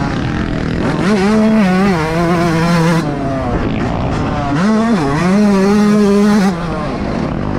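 Yamaha YZ125's single-cylinder two-stroke engine revving hard under throttle on a motocross track. The pitch climbs about a second in and holds, drops back, climbs again near five seconds and holds, then falls away as the throttle is shut near the end.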